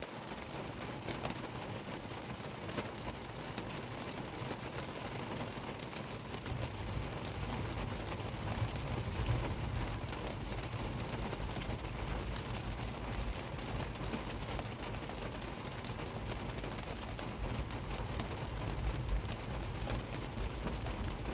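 Heavy rain drumming on a car's roof and windscreen, heard from inside the car as a steady patter of many fine drop hits.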